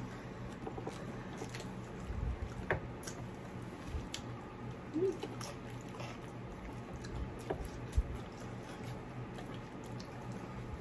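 Close-miked eating sounds: chewing and mouth noises with scattered small clicks and taps of a utensil, over a low steady hum.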